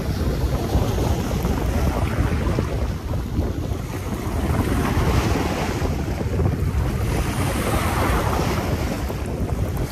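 Wind buffeting the microphone with a heavy low rumble, over sea waves washing and splashing against shoreline rocks, the wash swelling up about halfway through and again near the end.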